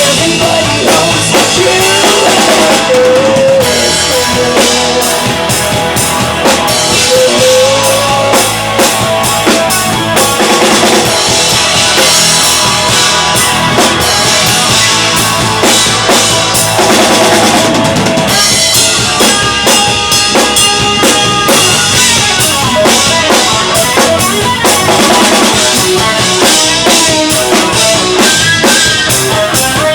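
Live rock band playing loud, with the drum kit to the fore: steady kick drum, snare and rimshot hits under guitar and bass.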